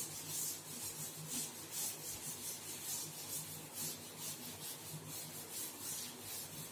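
A blackboard duster rubbing chalk off a chalkboard in quick back-and-forth strokes: a steady, rhythmic scraping of several strokes a second.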